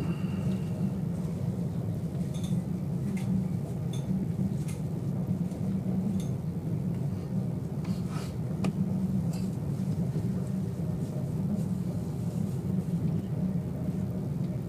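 Steady low rumble heard from inside the passenger car of a Sapsan (Siemens Velaro RUS) high-speed electric train running at about 230 km/h, with a few faint light ticks scattered through it.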